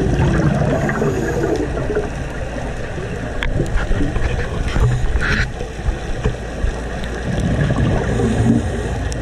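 Muffled underwater sound of a scuba dive: bubbling and gurgling from the divers' regulators and exhaled air, with a few short clicks.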